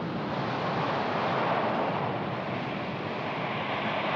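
Sea surf breaking and washing up the beach: a steady rushing of waves.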